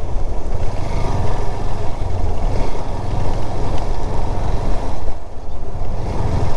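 Motorcycle riding along a road, its engine and road noise running steadily.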